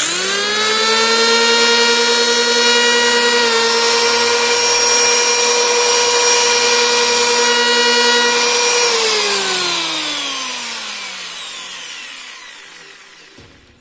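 Electric hand planer switched on, its motor and cutter drum spinning up at once to a steady high whine that runs for about nine seconds, then switched off and winding down with a slowly falling whine. It is running on freshly replaced bearings and now sounds more or less as a planer should.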